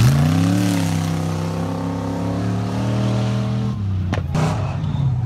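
Off-road tube-chassis buggy's engine revving up quickly at the start, then running at steady high revs with a slight fall in pitch. Near the end it cuts back, with a sharp crack and a short burst of noise, then keeps running at lower revs.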